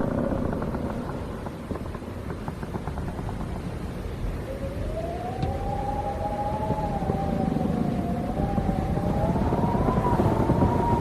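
Wind howling around a barn: a low rushing rumble, with a wavering whistle that rises in about four and a half seconds in and slowly climbs in pitch.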